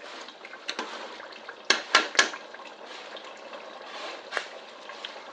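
A utensil knocking against a cooking pot several times, three sharp clinks close together about two seconds in, over a steady low hiss.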